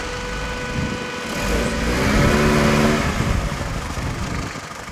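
A vehicle engine running, revving up about a second and a half in, held loudest for about a second, then easing off again.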